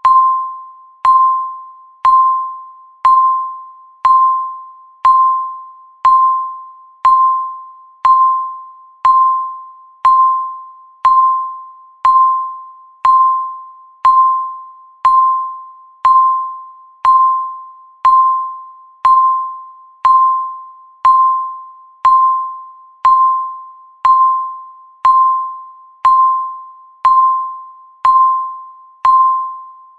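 Countdown timer beeping once every second: a single clear electronic tone of the same pitch each time, starting sharply and fading away before the next beep.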